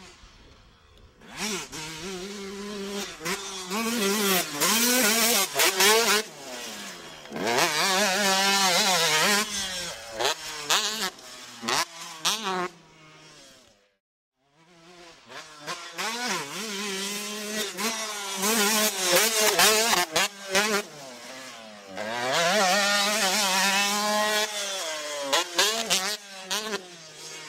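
Motocross bike engine, a 125, revving hard on a dirt track. Its pitch repeatedly climbs and drops with the throttle and gear changes. There are two runs, separated by a short silence about halfway through.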